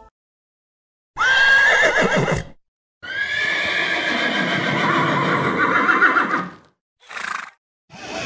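Horse whinnying twice: a short whinny that jumps up in pitch and wavers, then a longer one that wavers and slides, followed by a short burst near the end.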